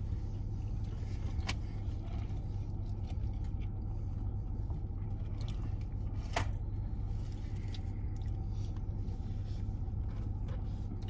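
Steady low rumble of a car idling, heard from inside its cabin, with a couple of faint clicks, the sharpest about six seconds in.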